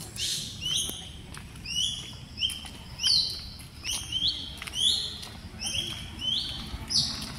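A bird calling over and over, about ten high calls. Each call slides down in pitch and then holds briefly, and they come less than a second apart.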